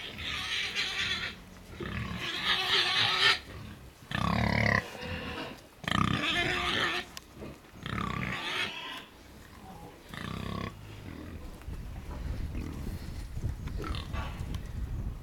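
A pig calling in about six loud, separate cries over the first ten or so seconds, then going quiet.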